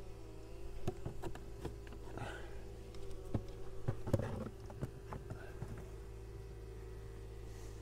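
Honeybees humming steadily in an open hive, with a few light wooden knocks in the first half as a comb frame is slid into the hive body.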